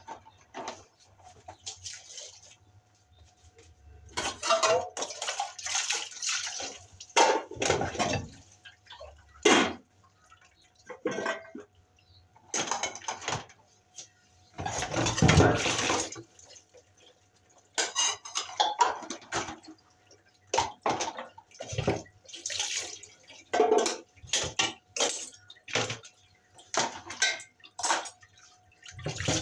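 Dishes being washed by hand at a sink: water splashing and running, with plates, utensils and pots knocking together in irregular bursts, and one longer rush of water about halfway through.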